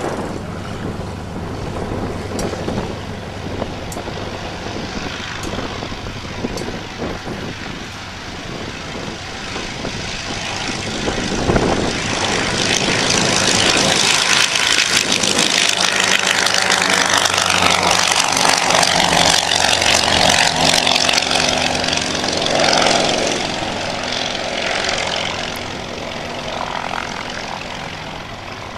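Percival Pembroke's twin Alvis Leonides nine-cylinder radial engines at take-off power on the take-off run. The engines grow louder as the aircraft passes, are loudest in the middle, then fade as it climbs away.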